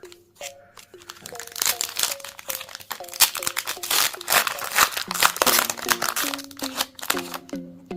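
Foil wrapper of a Pokémon booster pack crinkling and being torn open, densest from about a second and a half in to about five seconds, over light plucked background music.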